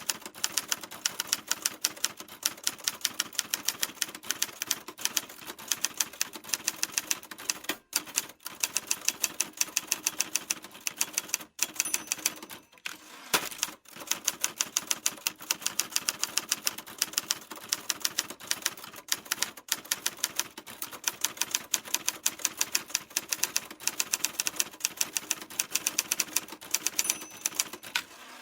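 Typewriter being typed on: a fast, steady stream of key clacks, broken by a few short pauses around the middle.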